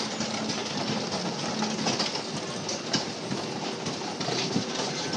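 Rotating kiddie motorcycle ride running, its machinery giving a steady rattling rumble.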